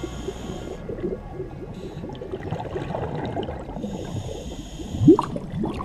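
Scuba diver's breathing heard underwater: exhaust bubbles gurgling in quick irregular bursts, the loudest about five seconds in, with a high hiss from the regulator in the first second and again about four seconds in.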